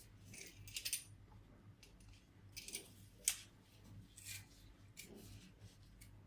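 Faint, scattered scrapes and clicks of kitchen food preparation, a handful of short sounds spread a second or so apart, the sharpest about three seconds in.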